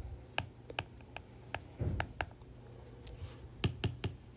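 A series of faint, light clicks, most about a third to half a second apart, with a soft low thump about two seconds in.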